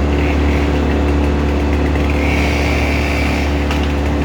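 A heavy engine of tree-removal equipment running steadily at a constant speed. A faint higher whine joins about halfway through and stops before the end.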